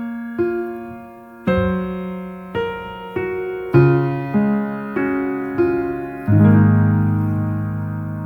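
Background music: a slow, gentle piano melody, single notes struck about once or twice a second, each fading away, with a fuller low chord held near the end.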